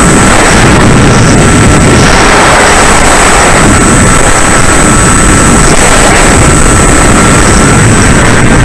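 Bixler 3 RC plane's electric motor and propeller running in flight, heard under a loud, steady rush of wind, with a thin, steady high whine.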